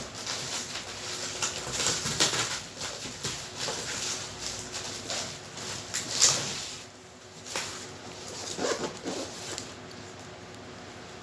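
Cardboard and plastic packaging being handled and opened: irregular rustling, scraping and light knocks, with a sharper knock about six seconds in, then quieter.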